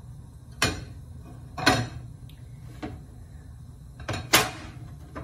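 A few knocks and clatters, the loudest about four seconds in, over a low steady rumble from the freshly lit gas stove burner.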